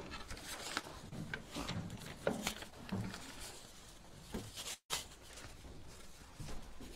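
Handling noise at a wooden lectern: low rustling and scattered small knocks and clicks as papers and a handheld microphone are gathered up. The audio cuts out for a split second about five seconds in.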